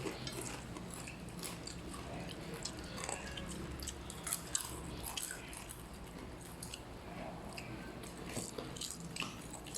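Someone eating, biting and chewing food, with many small scattered clicks and crackles.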